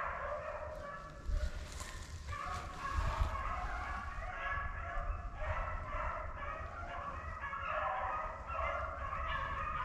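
A pack of beagles baying on a rabbit's trail while running it, with several voices overlapping in a steady chorus. A brushing rustle sounds for a couple of seconds about a second in.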